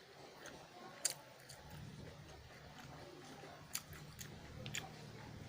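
Close-miked chewing of spicy instant noodles mixed with raw shallots and long beans, with a few sharp clicks, one about a second in and two more near the end.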